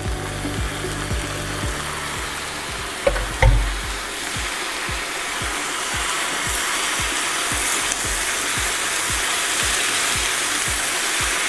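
Soy-mince and vegetable bolognese with chopped tomatoes sizzling in a hot frying pan as it is stirred with a plastic spatula, the sizzle growing a little louder after about four seconds. A sharp knock about three and a half seconds in.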